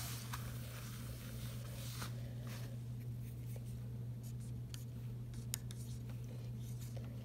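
Dry-erase eraser wiping across a clear plastic sheet protector, then an Expo chisel-tip dry-erase marker writing digits on it in short strokes, over a steady low hum.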